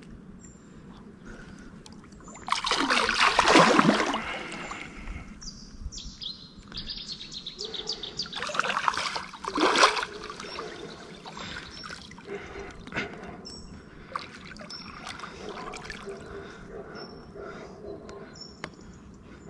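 A large wels catfish thrashing at the water's surface, with two loud bouts of splashing, one about two and a half seconds in and another around nine seconds in. Birds chirp in the background.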